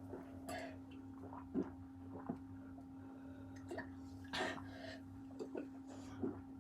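Faint, scattered gulps and swallows from someone chugging cold Dr Pepper, a few seconds apart, over a steady low hum.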